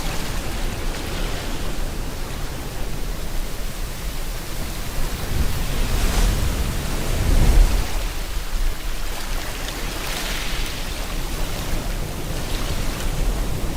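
Ocean waves breaking and washing on the shore under a steady hiss of rain, with a larger wave surging up about halfway through.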